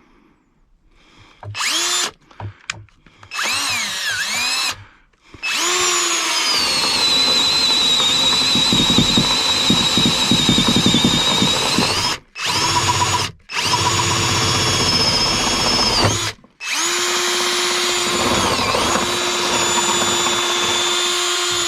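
Power drill with a 1-inch bit on a 6-inch extension boring through a wooden ceiling joist. A few short bursts come first, then long runs with brief stops, and the motor's pitch dips as the bit bites into the wood.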